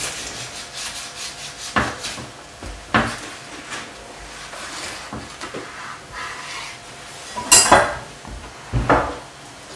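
Chef's knife sawing through a crustless club sandwich of soft white sandwich bread with a toasted middle slice, the blade rasping through the bread and knocking against the wooden cutting board several times, the loudest knock about three-quarters of the way through.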